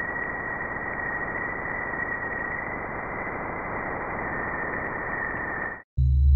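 Radio-style static hiss with a steady high whistle tone running through it. It cuts off sharply near the end, and a loud, deep droning sound starts.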